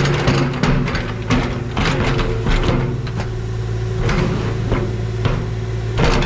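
Mini excavator's diesel engine running steadily, with repeated metallic knocks and scrapes as its steel bucket, hooked into the cut opening of a buried steel oil tank, pries the tank up.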